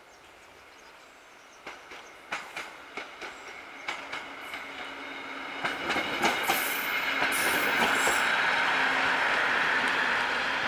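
Railway inspection car passing on the track: its wheels beat a run of sharp clacks over the rail joints as it draws near, then a steady rumbling rush builds and is loudest as the car goes by, near the end.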